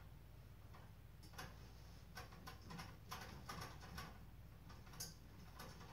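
Faint, irregular clicks and taps, a few a second through the middle, as the speaker module is fitted onto the animatronic prop's metal frame.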